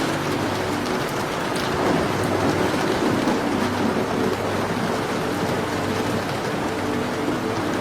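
Steady rain pattering, with faint fireplace crackles and a low rumble of thunder swelling about two seconds in.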